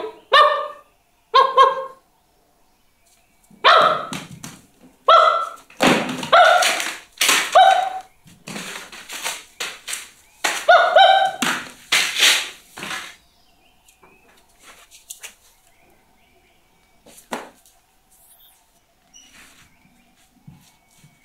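A man barking like a dog: a string of short barks, then a few longer drawn-out calls, stopping after about 13 seconds. A single thump comes a few seconds later.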